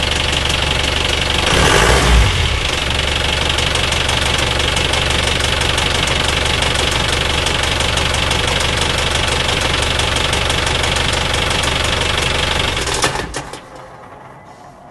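Engine running with a fast, even ticking or knocking, the noise in question at start-up. A brief louder surge comes about two seconds in, and the engine shuts off about thirteen seconds in.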